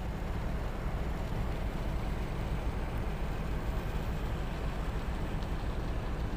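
Boat engine running with a steady low rumble, heard from on board, with a hiss of water and wind over it.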